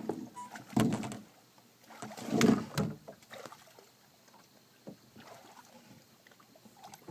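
A few irregular thumps and scuffs against a small fishing boat as a caught striped bass is handled, the loudest about two and a half seconds in.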